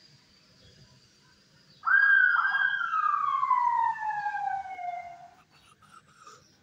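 A police car siren giving a short burst: it swoops up twice, then gives one long falling wail that dies away after about three seconds.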